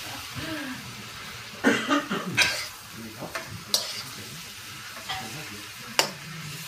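Food sizzling in a frying pan, with about five sharp knocks and clinks of utensils against cookware.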